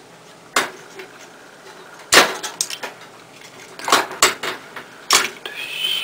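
Irregular sharp clicks and knocks of plastic and wire as a dishwasher control board and its wire connectors are handled, the loudest a scraping knock about two seconds in.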